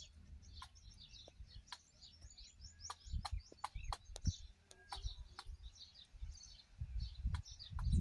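Peacock pecking bajra millet from a bowl: irregular sharp clicks of its beak striking the bowl, a few a second, with small birds chirping steadily behind.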